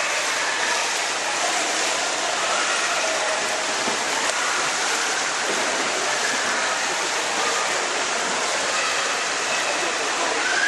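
Steady rushing noise of running water in an indoor swimming pool, as from the overflow gutters and circulation, with faint voices in the background.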